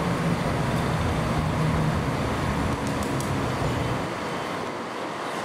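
Diesel train engine running with a steady low hum over rumbling noise; the engine sound drops away about four seconds in.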